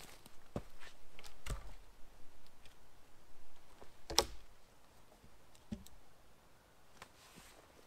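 Wooden poles knocking and clicking as they are handled and laid across a log frame: a few scattered sharp knocks, the loudest about four seconds in.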